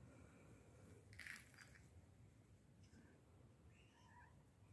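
Near silence, with a faint brief rustle about a second in.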